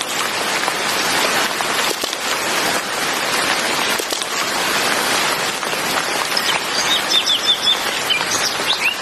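Steady heavy rain, with a bird chirping in quick, short, falling notes during the last few seconds.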